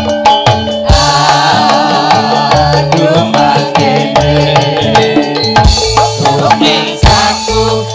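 Javanese campursari music played live and loud, with kendang hand drums beating a busy rhythm under keyboard melody and singing.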